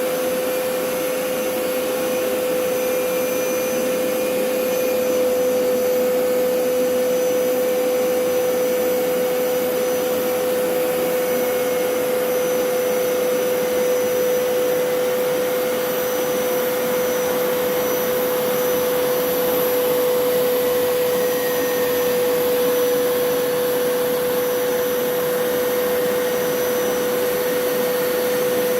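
Hoover PowerScrub Elite carpet cleaner running steadily: a constant motor whine over an even suction noise.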